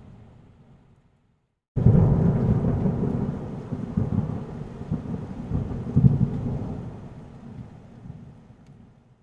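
Thunderstorm sound effect: a fading rumble of thunder over rain dies away about a second in, then after a short silence a louder roll of thunder with rain hiss cuts in abruptly and slowly dies away to silence near the end.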